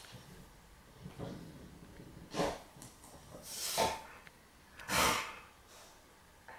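Staffordshire bull terrier snorting with its nose pushed under a sofa seat cushion: a few short, forceful snorts, the three loudest about a second and a quarter apart.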